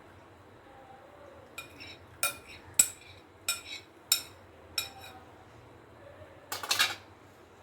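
Glass bowl and dishware clinking while hot ghee is poured from a microwave-proof glass bowl into a small bowl: about six sharp clinks spaced roughly half a second apart, then a brief rattling clatter near the end.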